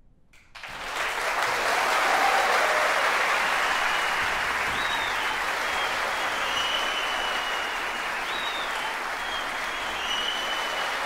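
Audience applauding, breaking out about half a second in and then holding steady.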